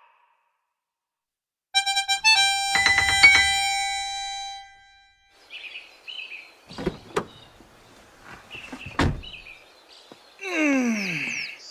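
A short bright chime flourish of several ringing bell-like notes about two seconds in, fading out by about five seconds. Then short bird chirps with a few dull thumps, and near the end a voice sliding down in pitch.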